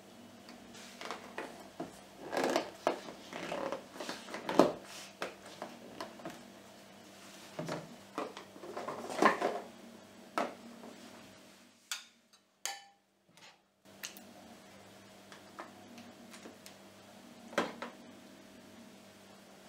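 Metal spoon scraping and knocking against an aluminium bowl of mashed raspberries, and light plastic food containers clattering as they are handled and filled, in irregular bursts of clicks and scrapes. The sound drops out briefly about twelve seconds in.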